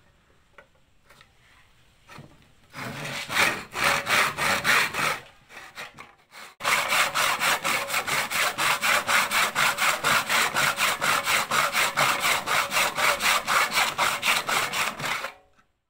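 Handsaw cutting through wood held in a wooden saw guide: a few strokes, a short pause, then fast, even back-and-forth strokes at about four a second, stopping near the end.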